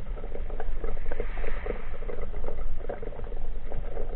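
Underwater sound picked up by a submerged camera: a steady low rumble with rapid, irregular crackling and ticking.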